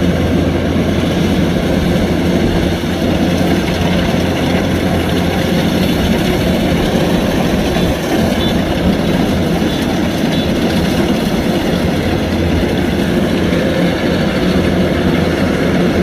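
Kubota DC-105X rice combine harvester running under load, its diesel engine and threshing machinery giving a loud, steady drone that holds even throughout.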